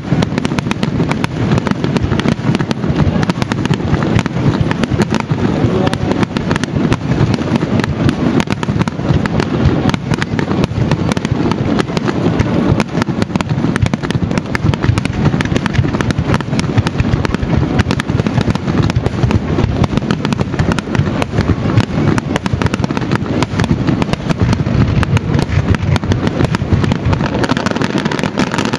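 Aerial firework shells bursting in a rapid, unbroken barrage, many bangs a second with crackling, the closing barrage of a fireworks finale.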